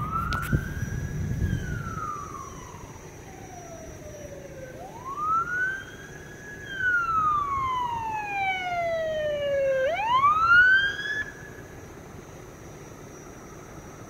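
Electronic siren on an approaching emergency vehicle sounding a wail. It sweeps up to a high pitch and slowly down, twice over, then makes a last quick rise and stops.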